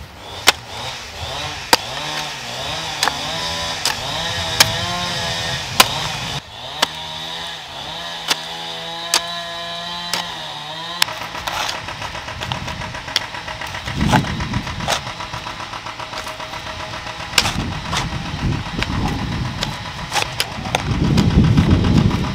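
Hand hoe chopping into stony soil in regular strokes. A small engine runs in the background for about the first eleven seconds, its pitch wavering and then holding steady before it cuts off. Low rumbling swells follow, loudest near the end.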